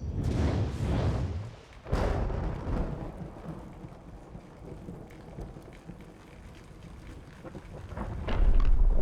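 Deep rumbling booms: one swell at the start, a second sharp boom about two seconds in that fades into a low rumble, then a louder, sustained rumble near the end.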